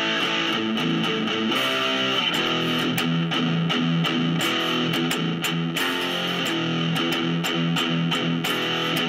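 Electric guitar played through the repaired AMT D2 preamp pedal: a run of picked notes and strums. It is a play test that shows the pedal now powers up and passes signal.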